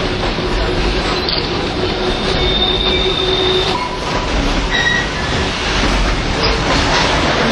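Kuranda Scenic Railway passenger train running along the track, heard from on board: a steady rumble with a few brief, high wheel squeals near the middle.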